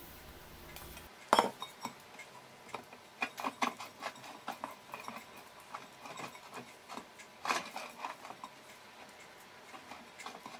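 A spatula spreading and smoothing thick chocolate cake batter in a nonstick granite tart pan, with irregular light clicks and taps against the pan. A sharper knock comes about a second in.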